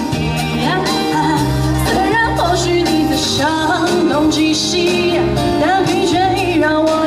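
Live band playing a pop song through a PA: a woman sings the melody with vibrato over electric guitar, keyboard and a steady bass line.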